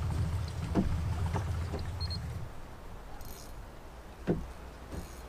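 A low rumble aboard a small fiberglass skiff cuts off about halfway through. A few short knocks are heard, the loudest a little before the end.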